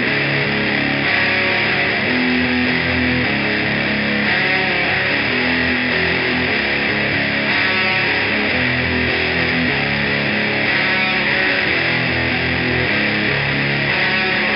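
Electric guitar played through a distortion or fuzz pedal, chugging a heavy, thick chord riff with held chords that change about once a second.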